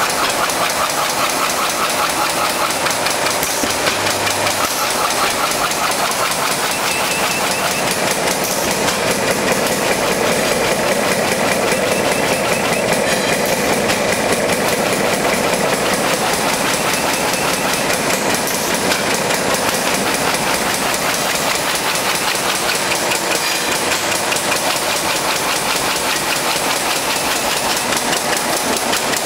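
Automatic side-seal bag-making machine running at 300 bags a minute, making a steady mechanical clatter with a rapid, even rhythm.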